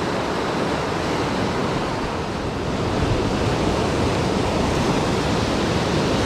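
Ocean surf breaking and washing over a rocky shore, a steady rush that grows a little louder about halfway through.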